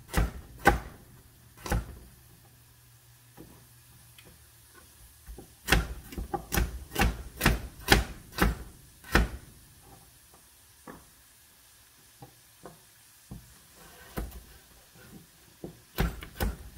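Chef's knife chopping carrots on a plastic cutting board: sharp knocks of the blade striking the board. There are two near the start, a quick run of about nine chops in the middle, faint scattered taps after that, and a few more chops near the end.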